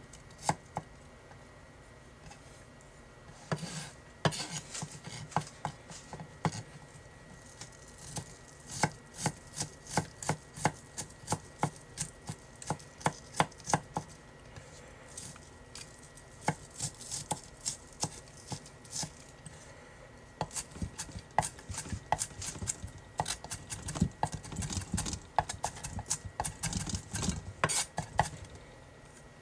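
Chef's knife chopping red onion and garlic on a wooden cutting board: sharp knocks of the blade on the wood in irregular runs of quick strokes, turning to denser mincing near the end.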